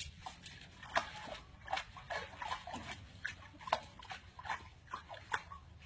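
Young raccoons giving short, squeaky chirping calls, about two a second, while they paw at the water in a basin.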